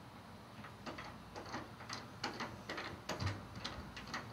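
Irregular light clicks and knocks of hand work at a table saw, as a board is set against the rail and a hold-down is fitted and tightened. The clicks come faster in the second half.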